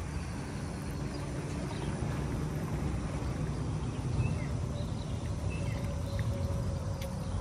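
Outdoor field ambience: a steady low rumble with a few brief, faint bird chirps in the middle.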